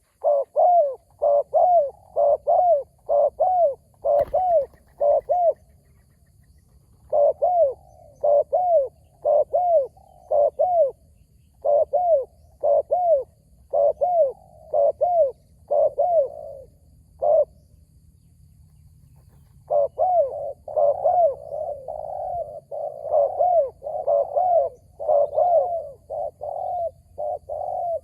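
Spotted dove cooing: a long series of short, repeated coo notes, about two a second, in runs with two brief pauses, denser and fuller in the last third.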